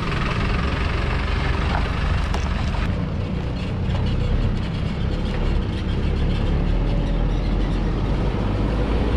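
Engine of a small fuel-delivery truck running steadily as the truck pulls away and drives off.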